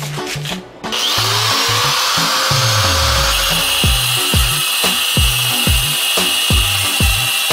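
A high-speed electric motor starts about a second in: its whine rises in pitch, then it runs steadily. Background music with a steady beat plays under it.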